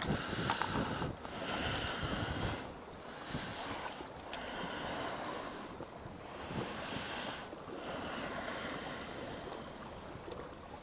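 Small wind-driven waves washing against a rocky shore, swelling and fading every couple of seconds, with wind on the microphone. A couple of faint clicks sound about half a second and about four seconds in.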